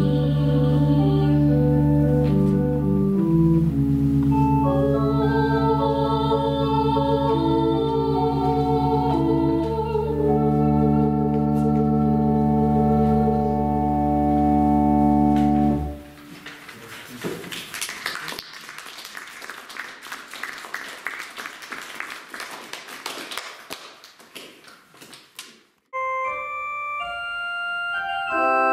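Pipe organ holding sustained chords, with a pedal bass, under a soprano's vibrato line; the music stops about halfway through. Audience applause follows for about ten seconds, then the organ starts a new piece near the end.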